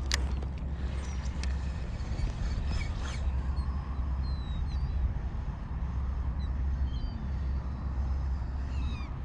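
Short, high bird calls repeating over the water from about three seconds in, over a steady low rumble. A sharp click comes at the very start.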